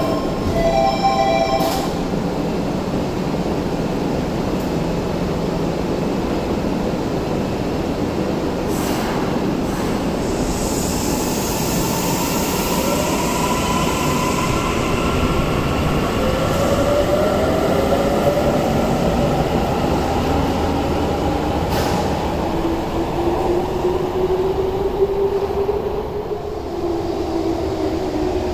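A subway train departing an underground platform. A repeating two-tone door chime ends about two seconds in, the doors shut with a knock, and then the train pulls away: the electric motors whine in rising tones as it speeds up over steady wheel and rail rumble, with some wheel squeal.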